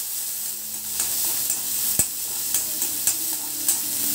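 Freshly added chopped onions sizzling in hot oil in a wok while a metal spatula stirs them. A steady hiss runs under irregular clicks and scrapes of the spatula on the pan, the sharpest about two seconds in.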